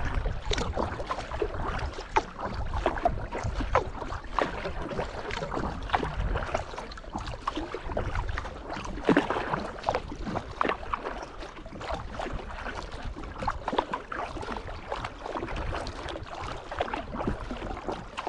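Water splashing and lapping against a sea kayak's hull as it moves over calm sea, many small splashes and trickles over a low wind rumble on the microphone.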